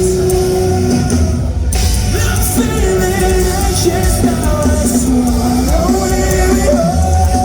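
Live rock band playing, with distorted guitars and drums and a vocalist holding sung notes, in a large hall.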